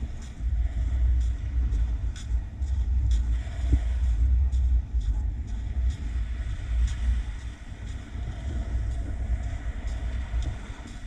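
Wind buffeting the microphone, a loud, uneven low rumble that swells and dips, with scattered faint clicks over it.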